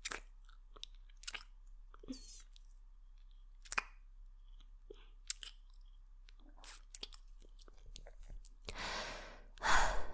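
Close-miked kissing: soft lip smacks and mouth clicks scattered through, then two long breaths near the end, the second the loudest.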